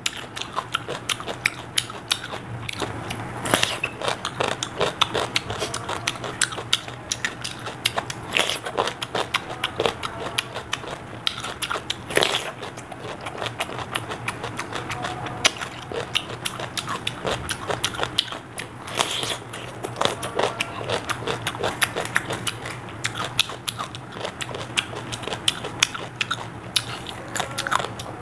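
Crunching and chewing of raw cucumber: a steady run of wet, crackly chewing with a few louder crisp bites into the cucumber flesh spaced through it.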